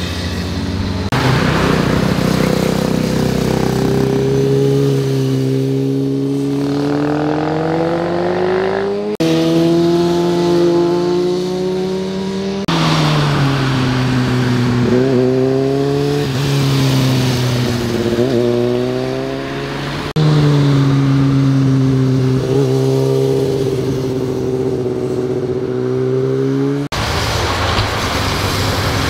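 Motorcycle engines heard one pass after another as the bikes ride through bends, each engine note rising and falling with throttle and gear changes. The sound changes abruptly from one bike to the next several times.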